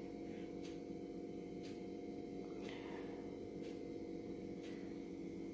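Steady low hum made of several tones, with faint short ticks about once a second.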